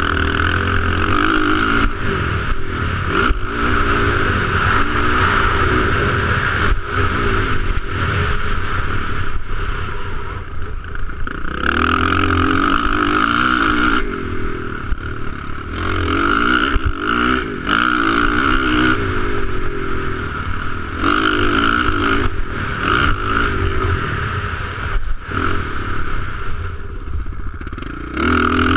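Dirt bike engine heard from on the bike, repeatedly revving up hard and backing off as it is ridden around a motocross track, with wind rushing over the microphone.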